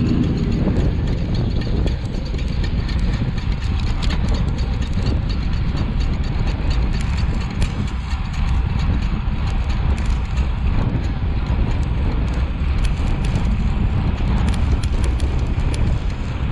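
Wind rushing over a bicycle-mounted camera's microphone, with road and traffic noise from riding beside cars, and irregular sharp clicks scattered throughout.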